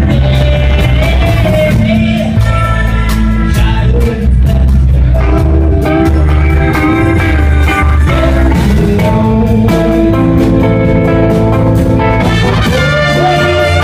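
Live band playing blues-rock, with guitar and bass over a steady drum beat.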